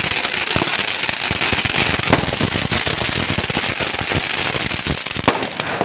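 Firecrackers going off in rapid, continuous crackling, a dense run of small bangs with a couple of louder bangs about two seconds and five seconds in. The crackling dies away at the very end.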